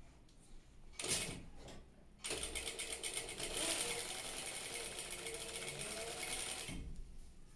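Industrial sewing machine running for about four and a half seconds, stitching along a folded fabric strip with a rapid, even patter of needle strokes. A short rustle of fabric handling about a second in.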